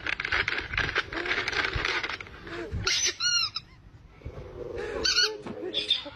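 Crinkling of a plastic treat bag, then a rubber penguin squeaky toy squeezed in quick bursts of high squeaks, about three seconds in and again near the end.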